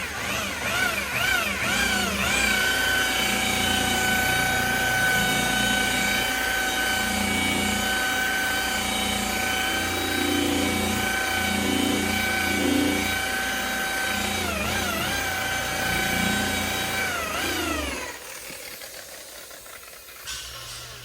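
Electric paint polisher (buffer) motor whining: it revs up and down in short sweeps, then runs at a steady high speed. Its pitch wavers briefly past the middle, and near the end it winds down and stops.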